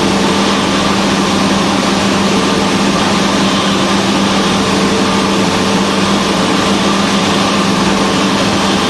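Cessna 172's four-cylinder piston engine and propeller droning steadily in flight, a constant hum with a steady low tone.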